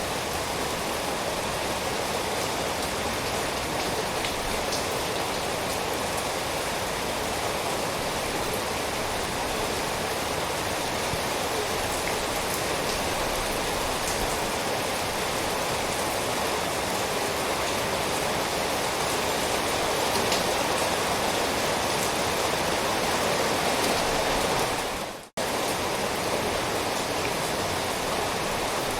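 Steady, even rain with faint scattered drop ticks. It cuts out for a split second near the end, then resumes.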